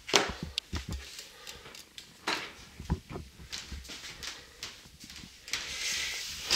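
Irregular knocks and clicks of a small handheld camera being handled and moved about, with a rustle near the end.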